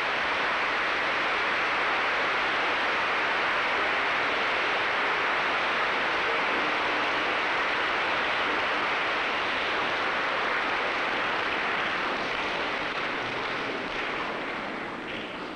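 A steady, loud rushing noise with no musical notes, starting suddenly and easing off a little near the end, like heavy surf.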